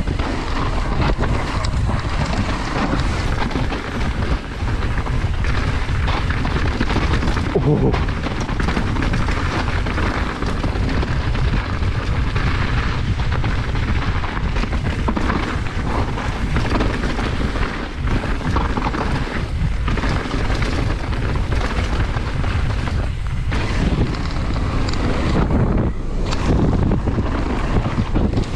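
Mountain bike running fast down a dirt singletrack, heard from the rider's camera: a continuous rumble of tyres on loose dirt and the bike shaking over the ground, mixed with wind buffeting the microphone, with a few brief dips in the noise.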